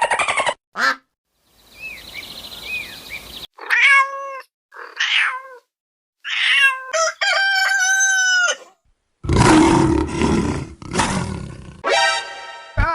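A string of short, abruptly cut animal calls and sound effects: several cat-like pitched calls, then a loud rough roar, then a buzzing call near the end.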